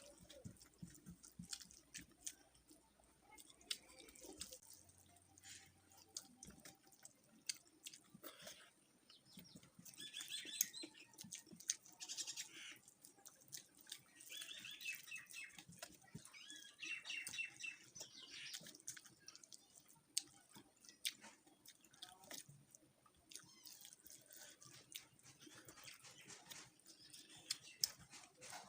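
Soft eating sounds with small clicks and smacks from chewing and handling food. A bird chirps in short runs in the background several times through the middle.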